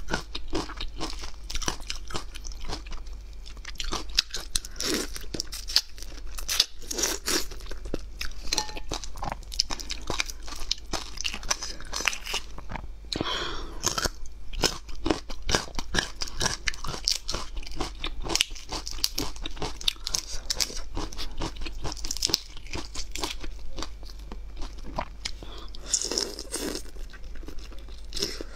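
Close-miked crackling and crunching of a large whole prawn as its shell is pulled apart by hand and the meat is chewed, a dense run of crisp clicks with no pause.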